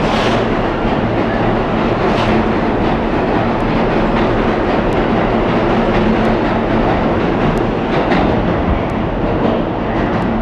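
R160 New York City subway train moving past along the platform: a loud, steady rumble and rattle of steel wheels on rail over a steady hum, with scattered sharp clicks.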